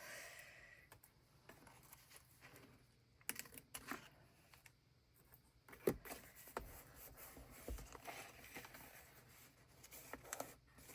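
Faint clicks, light scrapes and small taps of washi tape being trimmed and handled on a paper journal page, with one sharper tap about six seconds in.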